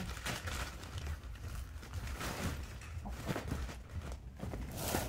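Plastic bag and fabric bag rustling and shuffling as they are handled and lifted during packing, with a louder rustle near the end, over a steady low hum.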